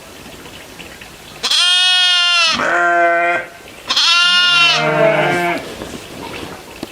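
Goat bleating twice, each long call starting high and then dropping to a lower second part.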